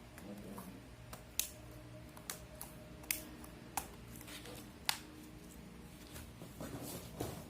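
Sharp plastic clicks and taps, about five spread over several seconds, as the parts of an Acer Aspire One D255 netbook are pressed back into place during reassembly. A low steady hum runs underneath.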